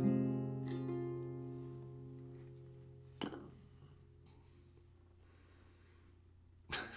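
The final chord of a song strummed on an acoustic guitar and ukulele, ringing out and fading over about three seconds. A single knock follows about three seconds in, then faint room quiet until a short loud rustle near the end.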